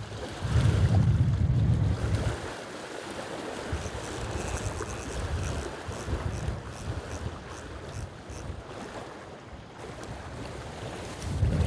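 Strong wind buffeting the microphone in gusts, loudest just after the start and again near the end, over a steady rush of wind and choppy water. A faint, quick ticking runs for several seconds in the middle.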